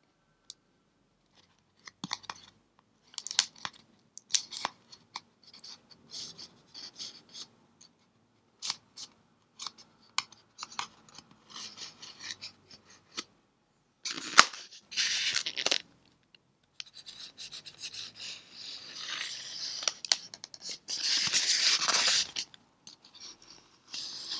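Precision hobby knife blade scratching and cutting along the seam of a polystyrene foam box. Short scratchy strokes come first, then longer, louder scraping runs in the second half.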